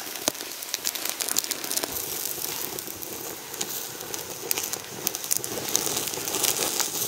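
Small open fire of dry twigs crackling, with many small irregular pops over a steady hiss, as sucuk sausage grills in the flames.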